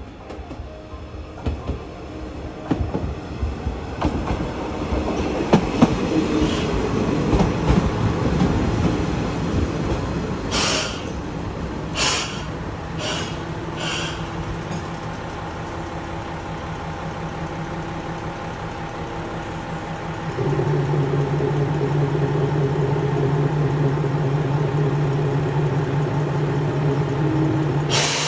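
Minamiaso Railway MT-4000 series diesel railcar pulling into the platform, its wheels clicking on the rail joints and squealing as it brakes to a stop. A few short sharp noises follow, then the standing railcar's diesel engine runs steadily, stepping up and getting louder about twenty seconds in.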